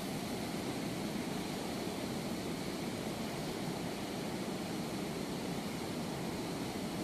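Water rushing out through the open gates of a river weir and churning in the rapids below them, a steady, unbroken rush.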